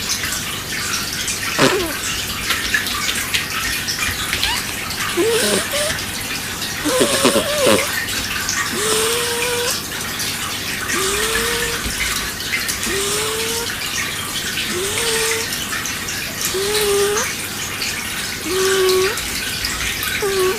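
Snoring, with a short rising whistle-like tone on each breath that repeats about every two seconds, over a steady rushing noise like running water.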